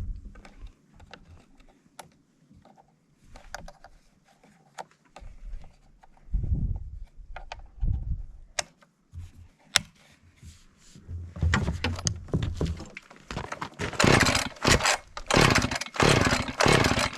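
Chainsaw being handled and pull-started after reassembly: scattered clicks and knocks of parts going together, then from about halfway in, rapid repeated strokes of the recoil starter cord that grow louder near the end.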